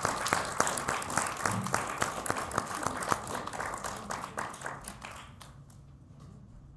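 Small audience applauding, the clapping thinning out and dying away about five seconds in.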